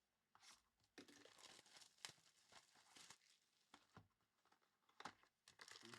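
Faint tearing and crinkling of plastic wrapping as Recon basketball card packs are opened, in a run of irregular rustles and short rips.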